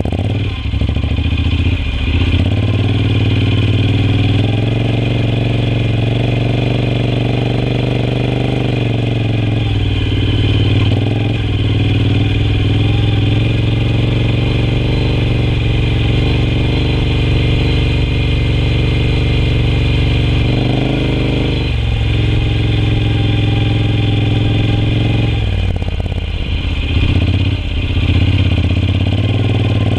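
Honda NC750X's 745 cc parallel-twin engine running as the motorcycle is ridden off-road, heard loud from on board. The engine note eases off and picks up again several times as the throttle is closed and reopened.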